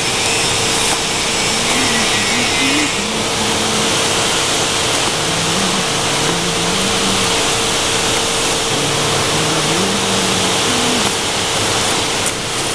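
Steady, loud machine-like hiss of blowing air, even throughout, with a constant whine underneath and faint low wavering notes.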